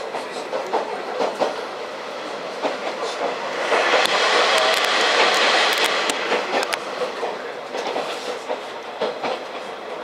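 KiHa 40 diesel railcar running along the track, heard from inside the car: a steady running noise with irregular clicks and knocks from the wheels and rails, louder for a couple of seconds near the middle.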